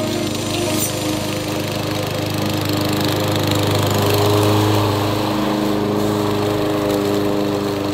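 Toro Recycler 22-inch push mower running steadily under load as its gator blades mulch dry leaves. The drone grows a little louder about halfway through.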